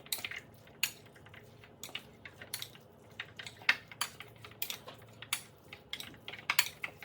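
A utensil clinking and scraping against a bowl in irregular taps while diced raw chicken is mixed with seasoning.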